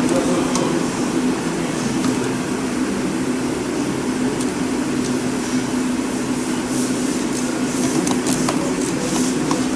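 Steady machinery hum, such as workshop ventilation, with one even pitch. Over it come scattered light clicks and knocks of hand work in the engine bay, most of them in the last few seconds, as plastic engine covers are unclipped and handled.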